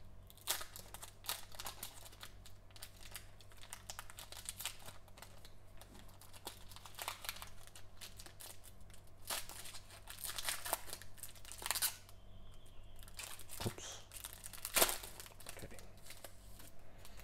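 Foil wrapper of a Panini Mosaic basketball card pack being torn open and crinkled in gloved hands: a run of irregular crackles and rustles, the loudest near the end.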